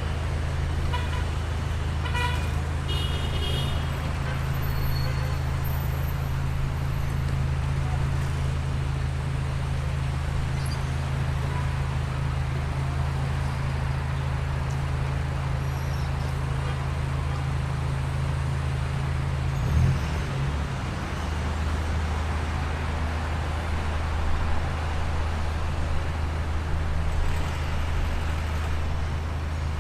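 Traffic jam: a steady low rumble of idling engines under general road noise, with car horns tooting several times in the first few seconds and a short thump about twenty seconds in.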